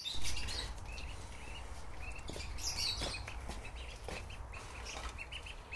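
Duckling peeping in short, high chirps repeated every half second or so, with a few faint knocks.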